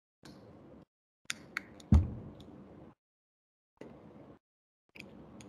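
A cardboard box being handled on a table: faint rustling, a few light clicks and one dull thump about two seconds in. The thump is the loudest sound. The sound cuts in and out with hard silent gaps, as through a video call's noise suppression.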